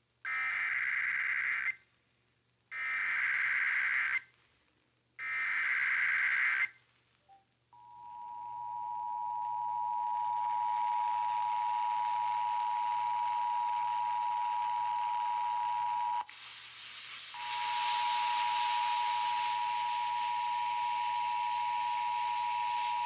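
Emergency Alert System tones off the radio: three short buzzy bursts of the SAME digital header, then the steady two-tone attention signal, broken off for about a second midway and then resuming over radio hiss. They announce an incoming alert, here a National Weather Service severe thunderstorm warning.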